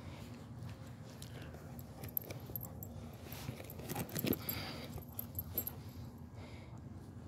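Metal tag and harness hardware on a schnoodle puppy's harness jingling and clinking as she tussles with a soccer ball, loudest a little after four seconds in.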